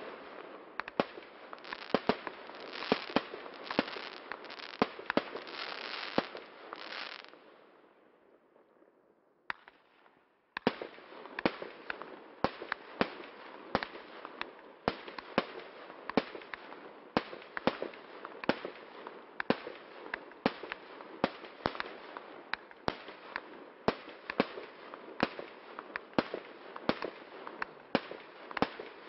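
A 30 mm multi-shot fireworks cake firing shot after shot, sharp reports with crackling between them. The firing dies away about a third of the way in and stops for a couple of seconds, then resumes at a steady two to three shots a second.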